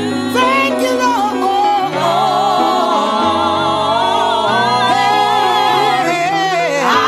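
Gospel music: singing over instrumental accompaniment with a steady bass line.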